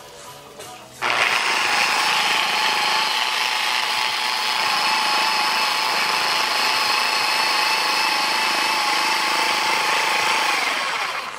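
Flex electric car polisher spinning a yellow foam polishing pad at speed while its pad is scrubbed clean on the fly. The motor whines steadily, starts suddenly about a second in, and winds down near the end.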